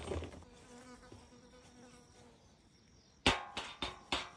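A fly buzzing close by, a faint steady hum in the quiet, then about three sharp knocks near the end, the first the loudest.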